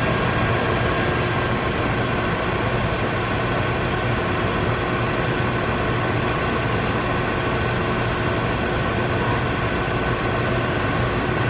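Microwave oven running with marshmallows inside: a steady electrical hum with a few constant tones over it.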